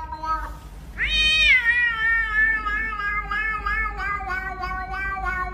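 Domestic cat giving one long, drawn-out meow that starts about a second in with a quick rise in pitch, then holds for several seconds, slowly falling and wavering.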